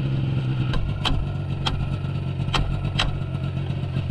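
Snowmobile engine idling steadily, with about five sharp clicks or knocks over it.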